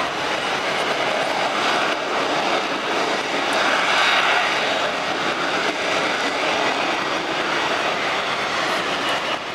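Lockheed Martin F-35B's jet engine and lift fan roaring steadily as the fighter hovers low, a loud, even rush that swells a little about four seconds in.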